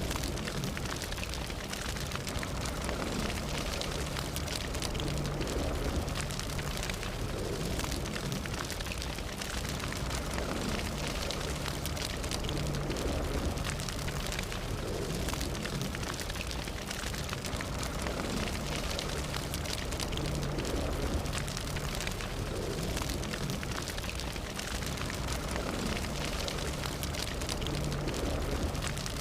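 Fire burning steadily: dense small crackles and pops over a low, continuous rumble.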